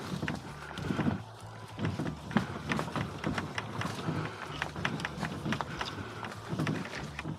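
A loaded boat pushed on a kayak cart over a trail of dry leaves: the cart and hull rattle and the leaves and twigs crackle, with footsteps thudding about once a second.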